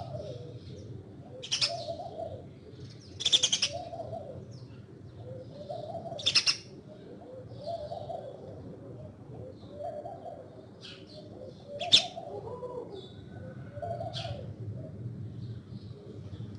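Doves cooing over and over, a low soft call every second or two, with a few short, sharp high sounds over it, the loudest about twelve seconds in.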